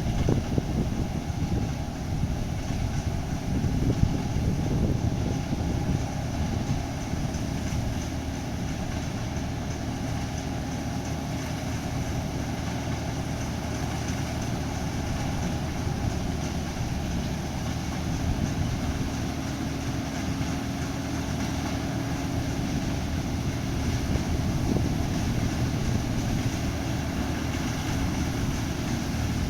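Combine harvester running steadily at work, its engine and threshing machinery giving a constant droning hum over a broad rushing noise.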